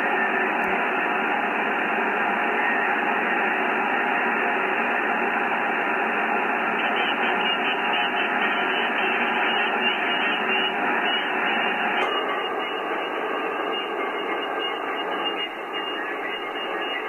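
Steady hiss of band noise from an HF transceiver's speaker, receiving in upper sideband on the 17 m band with no clear station. About twelve seconds in, a click and a slightly quieter, different hiss as the listening switches from the Kenwood TS-990 to the Icom IC-7300.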